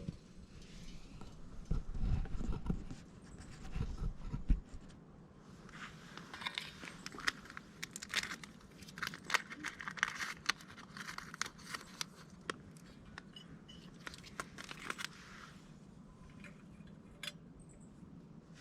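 Crinkling and rustling of handled packaging, with many small clicks and knocks. A few dull low thumps come in the first few seconds.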